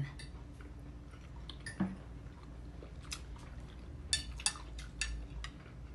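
Someone chewing a mouthful of food, with light clicks of forks and knives against ceramic plates, several close together from about three to five seconds in. A short vocal sound about two seconds in.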